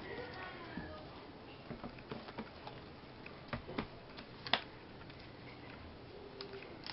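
Irregular light taps and clicks of merchandise and packaging being handled on a table during unboxing, with one sharper click about four and a half seconds in.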